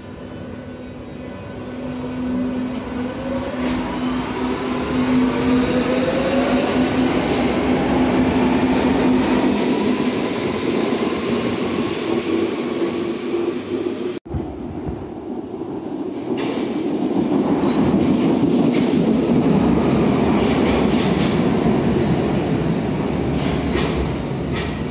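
Berlin class H U-Bahn train pulling out of the station, its electric drive whining in several rising tones as it speeds up, growing louder as it goes by. After a sudden cut, another U-Bahn train rolls past close by with a loud rumble of wheels on rails and scattered clicks.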